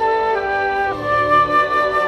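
Flute playing a slow melody of held notes that step from one pitch to the next, over a quieter lower accompaniment.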